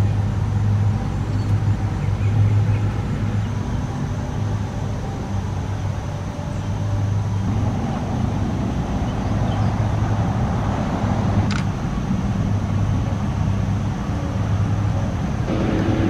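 Car engine idling with a steady low hum.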